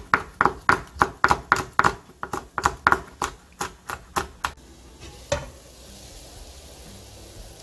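Kitchen knife chopping a Cheongyang chili pepper on a wooden cutting board, quick even strokes about three to four a second. After about four and a half seconds the chopping stops and a pot of beef and rice-water broth at a rolling boil hisses steadily, with a single knock about five seconds in.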